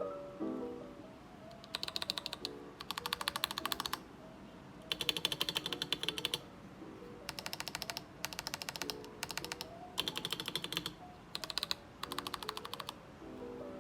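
Typing on a KBD67 Lite R2 gasket-mount custom mechanical keyboard with Gazzew Boba U4T tactile switches, a polycarbonate plate and PBT keycaps: fast runs of keystrokes about a second long, broken by short pauses.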